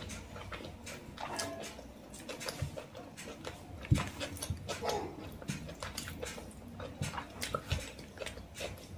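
Eating sounds: wet chewing and lip smacks, with fingers squishing rice and chicken curry on a plate, as many short irregular clicks. One sharper click comes about four seconds in.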